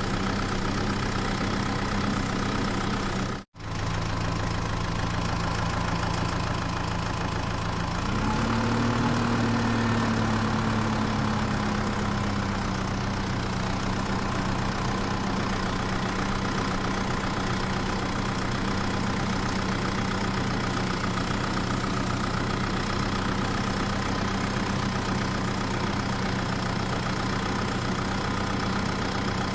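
Engine idling steadily. It cuts out for an instant a few seconds in, then revs up briefly about eight seconds in and settles back to idle.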